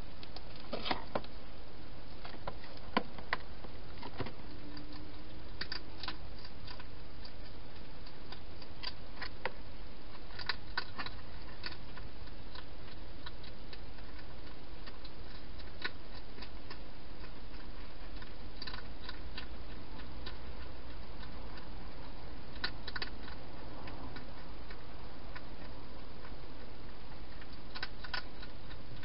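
A hedgehog eating at a feeding bowl: scattered crisp clicks and crunches, a few at a time with gaps between, over a steady hiss.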